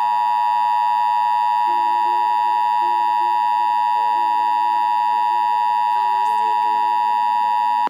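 Emergency Alert System attention signal: the two-tone 853 and 960 Hz alert tone, held steady and loud, then cut off abruptly, announcing the national EAS test. A faint melody plays underneath from about two seconds in.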